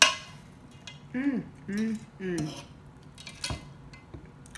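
A metal fork clicks sharply against a serving pan, loudest right at the start and again about three and a half seconds in, with three short hummed vocal sounds from the eater in between.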